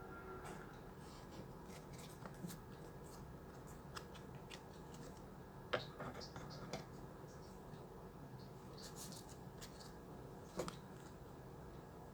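Plastic packaging of a pen drive being handled and opened: scattered clicks, scratches and crinkles, with two sharper snaps, about six seconds in and near the end.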